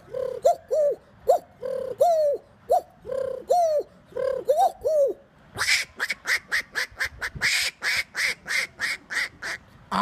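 A man's voice imitating a pigeon cooing, with repeated short coos that rise and fall in pitch. About five seconds in it switches to a fast run of short, sharp bird-like calls, about four a second.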